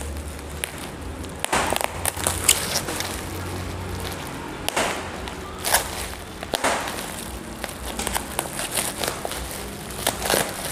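Plastic bubble-wrap packaging and packing tape crackling, rustling and tearing as a parcel's tape is slit and pried open with a pointed tool, in irregular crackles and short rips.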